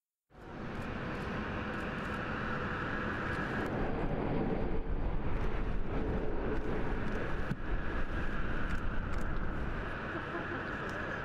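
Jet airliner engines running, a steady rushing roar with a low rumble that swells about four seconds in and eases near the end, as of a Boeing 787 Dreamliner passing or taking off.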